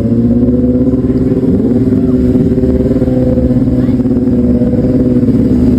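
High-performance engine held at a steady high rev, one loud, unwavering note throughout.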